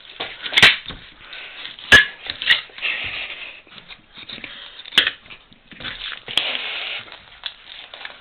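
Fillet knife sawing and scraping through a small fish on a plastic cutting board, with about five sharp knocks against the board spread through the cut.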